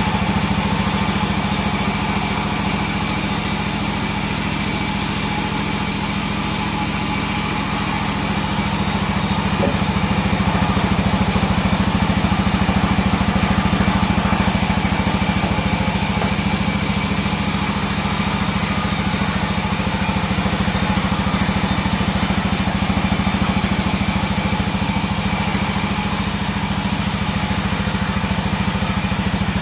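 42-inch sawmill bandsaw running steadily: a deep hum with a thin high whine over it, the level easing and rising again slowly.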